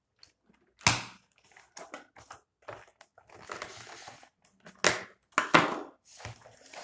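Cardboard box and plastic packaging of a Nerf blaster being worked open by hand: crackling and rustling with sharp snaps, the loudest about a second in and twice more around five seconds in.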